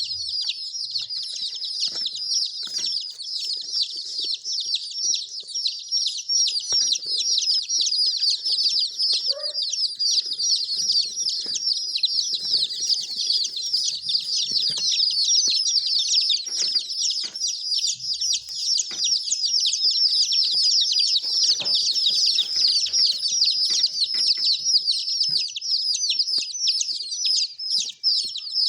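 Many baby chicks peeping at once: a dense, high-pitched chorus of short, falling calls that never lets up.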